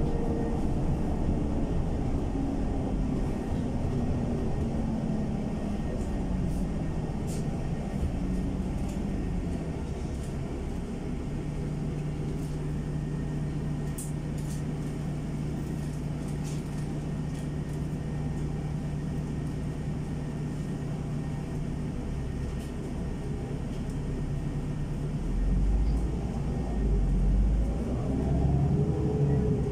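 NEFAZ 5299 city bus heard from inside the passenger cabin: the engine and drivetrain note falls as the bus slows to a stop, holds a steady low idle hum while it stands, then rises again as it pulls away near the end.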